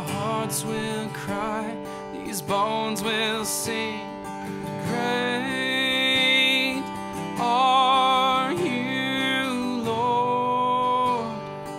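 Worship band music: acoustic guitar strumming under a singer holding long notes with vibrato.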